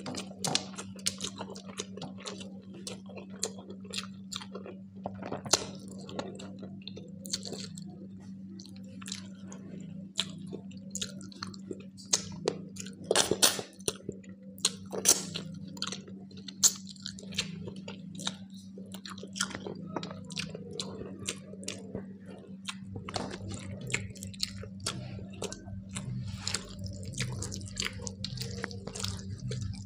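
Close-miked chewing and mouth sounds of eating rice, dal and fish curry: wet smacks and clicks with the odd louder crunch, over a steady low hum.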